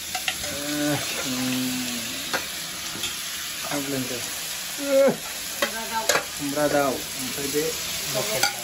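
Meat sizzling in hot oil in a wok, with a metal spatula stirring and scraping in the pan. Several short pitched sounds break in over the steady sizzle, the loudest about halfway through.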